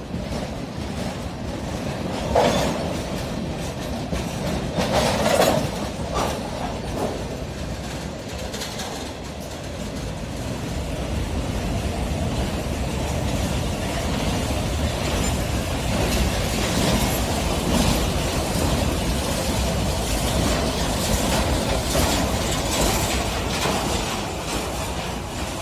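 Freight train of tank cars and covered hoppers rolling past at close range, steel wheels rumbling and clicking over the rail joints, with two louder clunks about two and a half and five seconds in.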